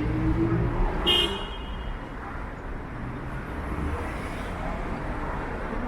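Downtown street traffic going by, with a short high-pitched tone about a second in.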